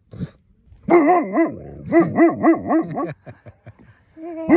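Large dog barking in two quick runs of short barks, about seven in all: alert barking at a passing hiker.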